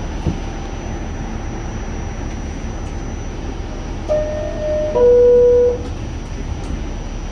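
Steady low rumble inside a New York City subway car, then about four seconds in a two-note descending chime, the second note lower and louder: the subway car's door-closing chime.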